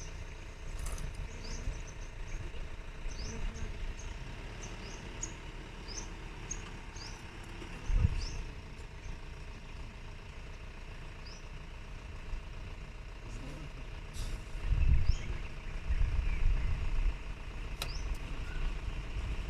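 Safari jeep engine idling with a steady low rumble, while a small bird chirps repeatedly with short rising notes through the first half. A sharp thump comes about eight seconds in, and the low rumble swells louder around fifteen to seventeen seconds.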